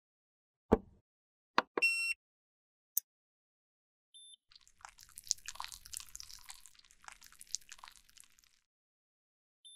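A thump and a few clicks, then a short electronic beep from the heating device as it starts. This is followed by about four seconds of fine crackling and popping as the broken cream makeup pieces heat and melt in their metal pans. A small beep comes near the end.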